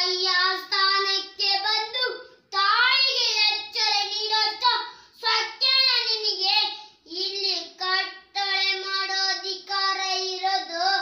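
A young child singing a Kannada song unaccompanied, in a high voice, in phrases broken by short pauses for breath.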